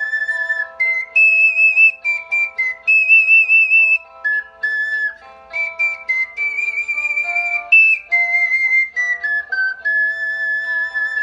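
Ocarina playing a slow melody of held notes with vibrato. Underneath runs a softer accompaniment of sustained lower notes.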